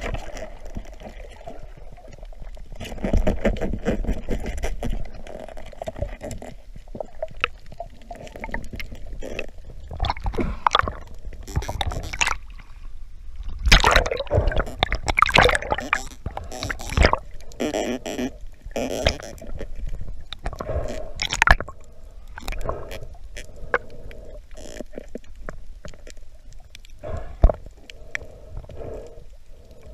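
Underwater gurgling and bubbling of water around the camera, broken by many irregular clicks and knocks.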